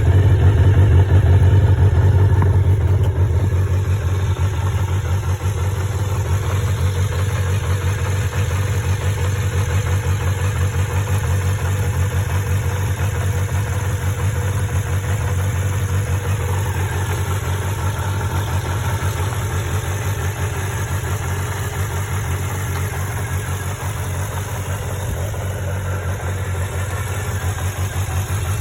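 Kawasaki Zephyr 400χ's air-cooled inline four-cylinder engine idling steadily, a little louder for the first few seconds before settling. It runs without abnormal noises, as the seller states.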